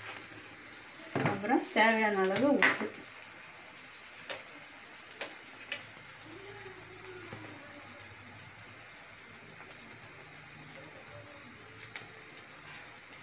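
Onion-tomato masala with chilli powder sizzling in oil in a metal kadai, a steady frying hiss with a few light clicks. A voice is heard briefly about a second in.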